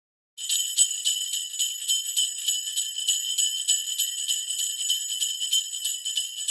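Sleigh bells jingling, shaken in a steady rhythm of about four shakes a second, starting just after the beginning.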